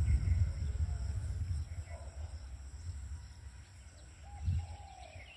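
Outdoor ambience: a low rumble on the phone microphone that fades over the first few seconds, with faint bird calls, a few short arched whistled notes, the clearest near the end.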